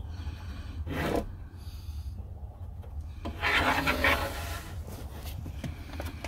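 Tape measure and pencil scraping and rubbing across a sanded plywood board while a measurement is marked. There is a short scrape about a second in and a longer, louder rasping rub from about three and a half to four and a half seconds.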